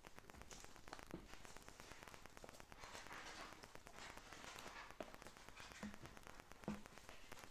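Faint rustling with a few soft taps and knocks as a doll and its clothes are handled.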